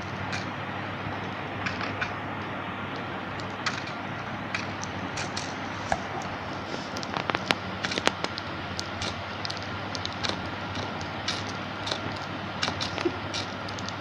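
Scattered small clicks and crackles from a lutino budgie moving on the rim of a plastic seed dish and starting to peck at the seed, with a quick flurry of clicks about seven to eight seconds in. A steady low hum runs underneath.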